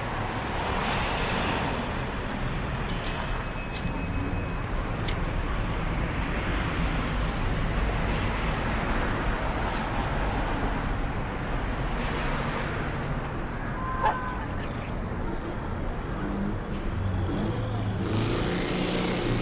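Steady road traffic noise, an even hum of passing cars, with a short high chirp about fourteen seconds in.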